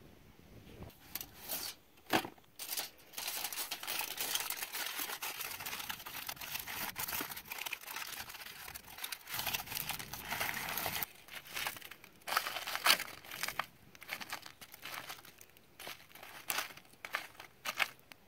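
Aluminium foil being folded and crimped by hand into a packet, crinkling irregularly on and off.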